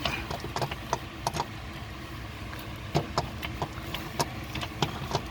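Irregular metal clicks and knocks as a replacement starter motor is twisted and pushed into its mounting by hand, over a steady low hum.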